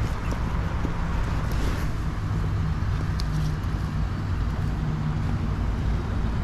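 Steady low rumbling noise that holds level throughout, with a couple of faint clicks.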